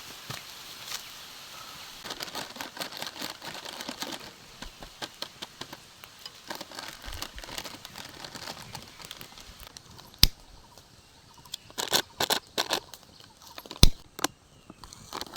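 Crinkling and rustling of a plastic chips packet and food being handled, with irregular clicks and a few sharp louder taps in the second half.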